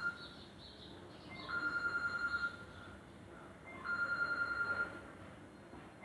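Samsung Galaxy J5 phone-ring ringtone: a rapid, trilling electronic bell sounding twice, each ring about a second long, with about two and a half seconds between rings.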